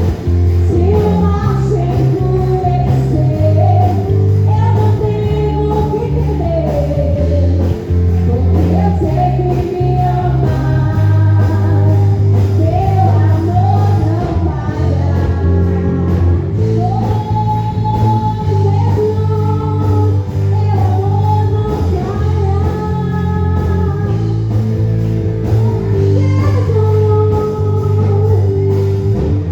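Gospel praise music: a voice singing a melody over a band with a heavy bass line.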